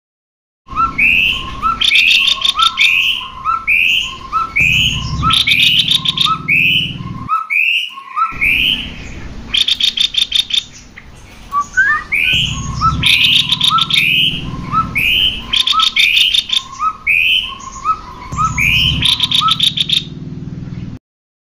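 Cucak kopi birds calling in a fast, continuous string of short whistled notes, broken several times by rapid rattling chatters. It is a lure recording used to get kept cucak kopi to sing. The audio drops out briefly twice.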